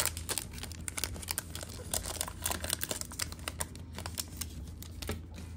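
Foil wrapper of a baseball card pack crinkling as it is peeled open and the cards are pulled out, a dense run of quick crackles.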